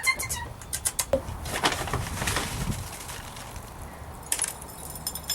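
Birdseed being poured into a china teacup: a rattling patter of seeds on ceramic with small clinks, thickest at the start and again about four seconds in.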